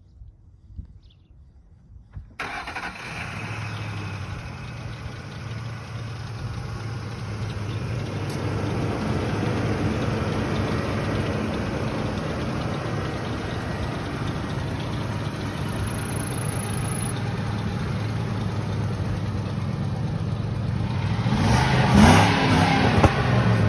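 Ford F-150 FX4 pickup engine starting about two seconds in, then idling steadily. Near the end it is revved briefly, heard close to the tailpipe, and this is the loudest part.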